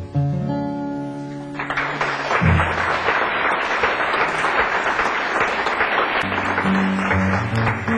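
Acoustic guitar ringing out the last notes of a song. About a second and a half in, an audience breaks into applause, which is the loudest sound. Near the end, guitar notes are picked again under the clapping.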